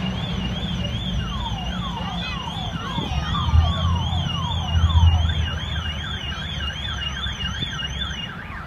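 Police sirens: one high, fast warbling siren throughout, a run of falling yelps in the middle, and a second, lower and slower warbling siren joining about halfway. Under them is a low engine rumble, loudest from about three and a half to five seconds in.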